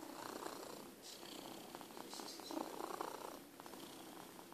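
Domestic cat purring, the purr swelling and fading in waves roughly once a second.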